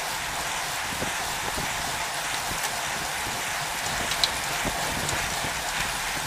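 Steady hiss of road-bike tyres and rushing air, picked up by a camera mounted on a bicycle riding in a bunch of cyclists, with scattered faint ticks and one sharp click a little past four seconds.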